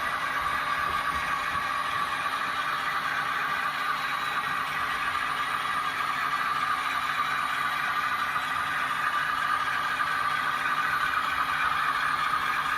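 Model trains running steadily around the layout: an even whir of motors and a clatter of wheels on the track that neither stops nor changes.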